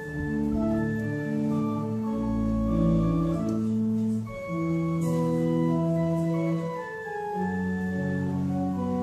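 Welte theatre organ played live: held chords moving under a melody, with a deep bass note sounding about two seconds in.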